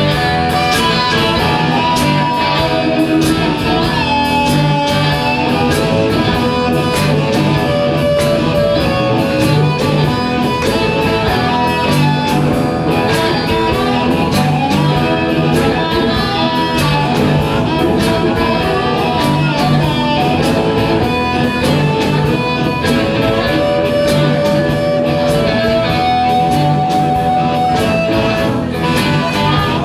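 Live blues band playing an instrumental passage with no singing: an amplified harmonica leads with long held and bent notes over homemade box guitars and a drum kit with a steady beat.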